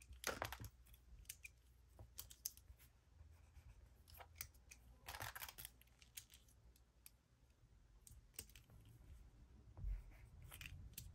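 Faint, scratchy strokes of a coloured pencil on paper, twice in short passages, with scattered light clicks and taps as pencils and their caps are handled on the desk.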